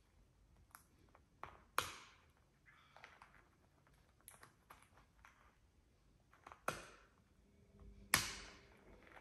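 Blue-and-gold macaw cracking a walnut shell with its beak: irregular sharp cracks and clicks a second or more apart, the loudest about two seconds in and twice near the end.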